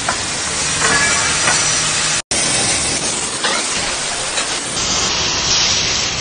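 Angle grinder grinding the cut end of a steel prop tube, a steady hiss. It breaks off abruptly about two seconds in and is followed by an automatic welder hissing steadily as it welds a plate onto a steel tube.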